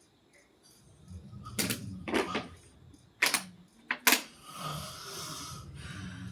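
A sleeping person snoring: a low snore broken by several sharp clicking snorts, then a long breathy exhale near the end.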